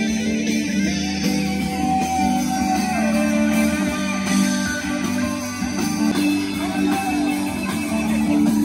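A live band playing guitar music, electric guitars over a bass guitar, through amplifiers.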